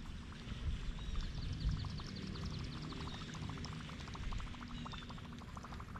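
Creek water gurgling, with a quick patter of small splashes.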